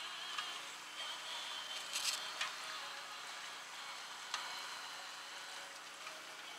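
Creek water running through a gold-prospecting sluice box, a steady hiss, with a few sharp clicks of a shovel and stones in gravel about two seconds in and again a little after four seconds.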